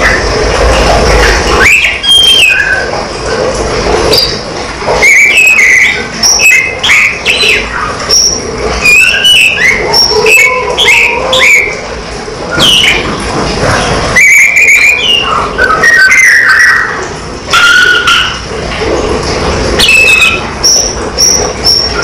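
Caged tledekan, a blue flycatcher, singing in bursts of short clear whistles and quick chirps, many sliding up or down in pitch, over a steady low hum.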